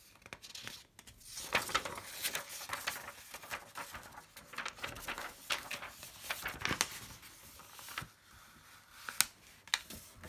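Sheets of paper being handled on a desk: irregular rustling and sliding as one sheet is lifted away and another is laid down and pushed into place, with two sharp taps near the end.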